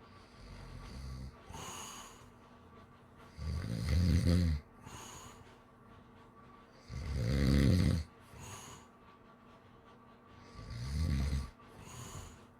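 A sleeping person snoring: three loud, low, rattling snores about three and a half seconds apart, with softer breathy breaths between them.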